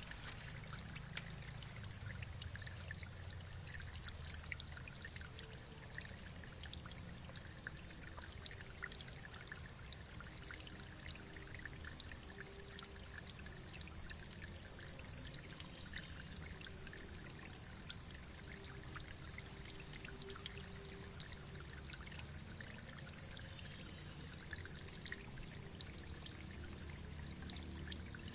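Running water pouring and trickling steadily, with many small drips and splashes and a steady high hiss.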